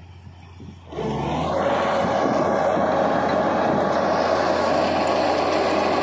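Crawler bulldozer's diesel engine running loud under load as the blade pushes soil, coming in abruptly about a second in and then holding steady.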